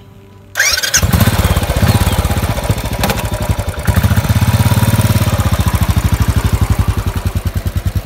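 An engine starts up abruptly about half a second in, then runs with a steady, evenly pulsing low throb.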